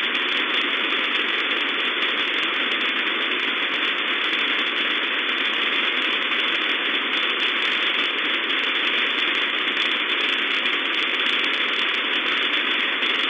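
Steady shortwave receiver hiss: static from a software-defined radio tuned in upper sideband to 11074 kHz, limited to a band below about 4 kHz, with no voice from the number station heard.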